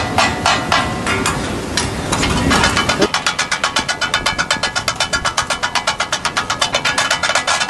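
Katakat being made: two metal chopping blades striking a large metal griddle in a fast, rhythmic clatter as the food is chopped. For the first three seconds the strikes come about five a second over a steady hiss. Then the hiss drops away and the strikes quicken to an even beat of about nine a second.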